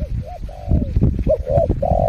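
Spotted dove cooing in a run of short and drawn-out coo notes, over a low rumbling noise.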